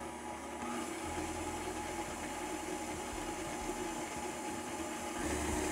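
KitchenAid Artisan stand mixer running at medium speed, a steady motor hum. Its flat beater is creaming softened butter while granulated sugar is added.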